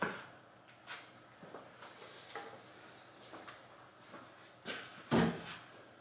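Scattered light knocks and clicks, with one heavier, dull thump just after five seconds in.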